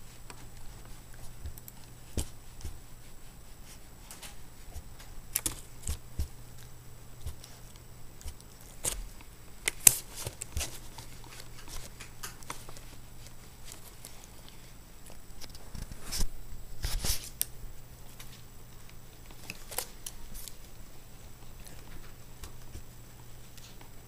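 Scattered light taps, clicks and rustles as a small papillon dog noses and paws at a laptop screen close to the microphone, the loudest taps about ten seconds in and again around seventeen seconds, over a steady low hum.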